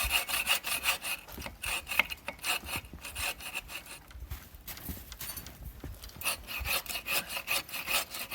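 Hand saw cutting through a wooden pole in quick back-and-forth strokes, with a slight ringing of the blade. The strokes break off briefly a little past the middle, then pick up again.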